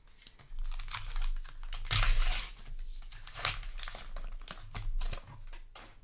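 Crinkling and tearing of a foil trading-card booster pack wrapper, in a run of rustles with the loudest and longest about two seconds in.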